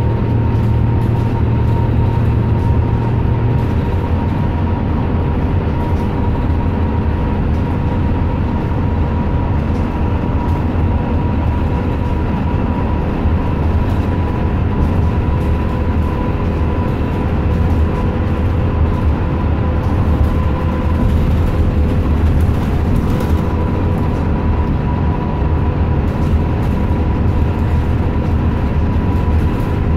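Inside a moving bus at road speed: a steady low rumble of engine and tyre noise, with a steady whine running over it.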